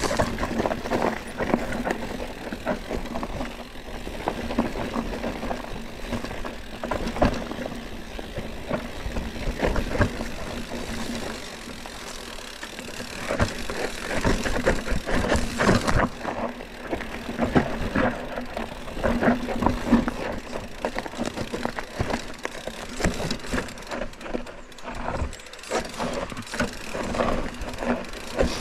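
Mountain bike descending a dirt and rock forest trail: tyres rolling over the ground, with the bike rattling and knocking irregularly over roots and bumps and a steady low hum underneath.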